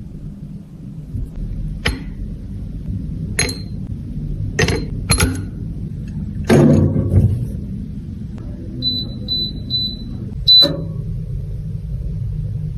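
Several sharp clicks and knocks, a few seconds apart, then four short high beeps about half a second apart, over a steady low rumble.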